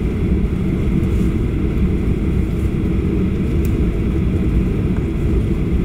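Steady low rumble inside the cabin of a Boeing 737-800 on the ground after landing, its CFM56 turbofan engines at idle.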